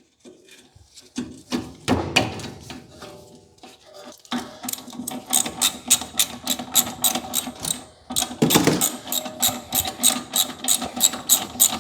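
Ratchet wrench clicking in a fast, even rhythm of about five clicks a second, turning a bolt on the car's brake and suspension. It starts after a few scattered knocks, pauses briefly, then goes on.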